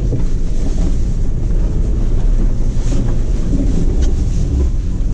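Toyota off-road truck driving slowly over rough, frosty field ground, heard from inside the cab: a steady low rumble of engine and tyres.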